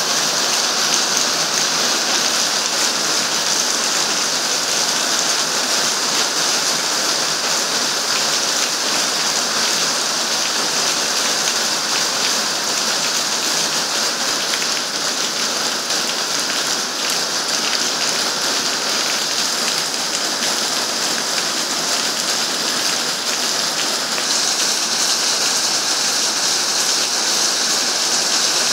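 Heavy rain pouring down steadily onto wet pavement and standing water: a dense, even hiss of countless drops.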